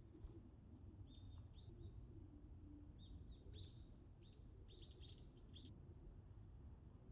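Near silence with faint bird chirps: a run of short, high, falling chirps starting about a second in and ending shortly before the end, over a quiet low rumble of outdoor background.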